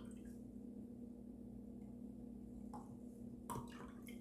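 Steady low hum with two light clicks, like shaving gear being set down or handled, about three seconds in and again half a second later.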